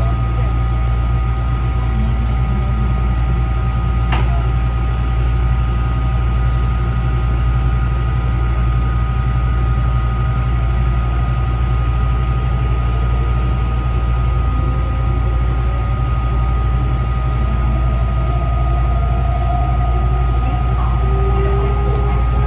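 Taichung MRT Green Line metro train: a steady low rumble and hum with a few steady whining tones, and one sharp click about four seconds in. A faint tone rises near the end.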